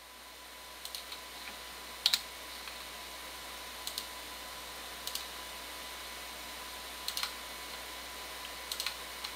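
Scattered sharp clicks of a computer mouse and keyboard, single and in pairs, a second or two apart, over a faint steady hiss.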